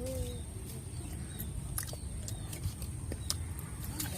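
Chewing while eating roast duck, with scattered sharp clicks and crunches from the mouth and food, over a steady low rumble and a thin high steady tone.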